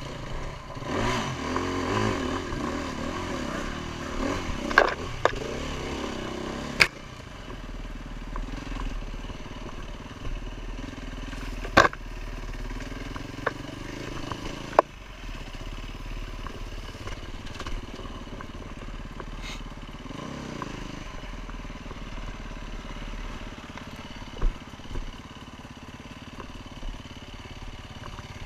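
Enduro motorcycle engine revving up and down as the bike rides a dirt trail, louder and changing pitch in the first several seconds, then running more evenly. Several sharp knocks cut through, the loudest at about 7, 12 and 15 seconds in.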